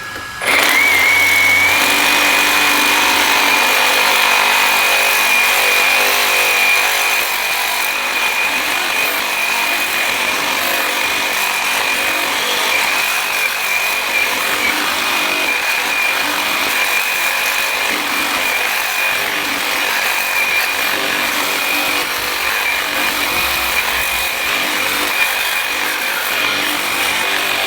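Reciprocating saw with a Diablo AMPED Steel Demon blade cutting through a hardened steel drive shaft, starting about half a second in and running steadily under load with a constant high-pitched whine. The blade is pushed hard enough to overheat and turn blue in the cut.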